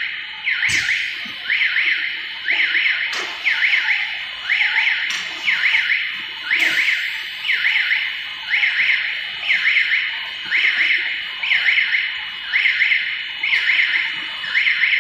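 Electronic warning alarm on a stretch film winding machine, a wavering tone repeating evenly about twice a second, with a few sharp machine clicks mixed in.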